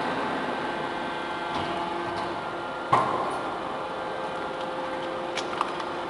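Hydraulic double-ram metal baler running: a steady hum from its pump and motor, with a sharp metal clank about three seconds in and a few lighter clicks near the end.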